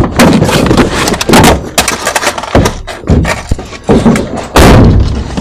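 A rapid, irregular series of loud thumps and bangs against the body of a car, heard from inside, with one very loud bang near the end.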